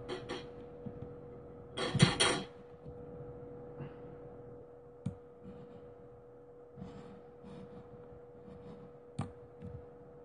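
A short loud burst about two seconds in, then quiet room tone with a steady hum and a few scattered clicks and knocks.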